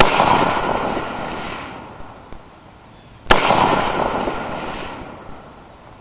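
M-16A3 rifle firing two single 5.56mm shots about three seconds apart, each sharp crack followed by a long echo fading over about two seconds.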